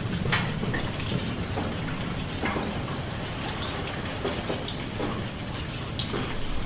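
Steady rain falling, with individual drops ticking irregularly on a surface over an even hiss.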